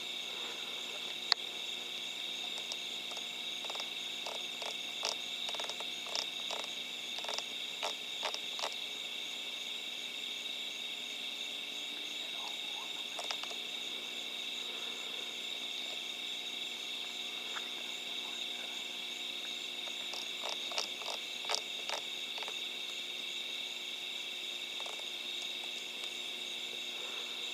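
A steady night-time chorus of frogs calling, with scattered short clicks about a quarter of the way in and again about three quarters of the way in.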